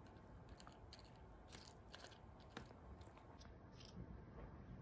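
Near silence, with faint soft scrapes and small clicks of a spatula and then a spoon spreading thick pastry cream over a cake inside a metal cake ring.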